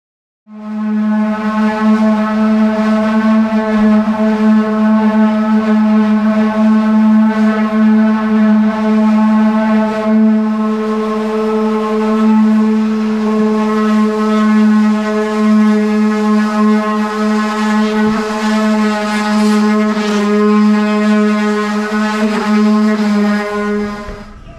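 Electric sander motor running steadily with a loud, even hum, starting abruptly about half a second in and stopping near the end.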